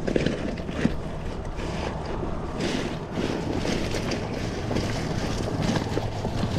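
Wind buffeting the microphone and water lapping against the kayak, with a few sharp knocks in the first second as hands work in the ice of a soft cooler bag.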